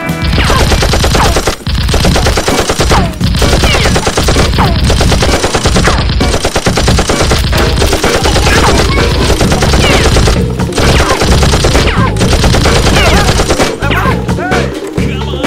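Sustained rapid automatic-gunfire sound effects, fast volleys of shots with short breaks, dubbed over a Nerf blaster fight.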